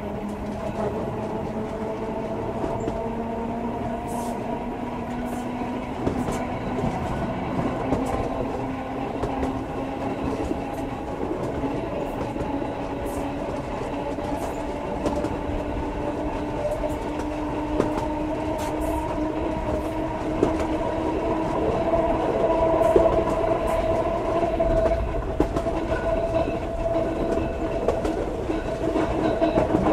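Ueda Kotsu Moha 5253, an old 'round-window' electric railcar, running, heard from a seat inside the car with the microphone aimed out of the window. The motor whine rises slowly in pitch as the car gathers speed, over a steady running rumble and scattered clicks of the wheels over rail joints.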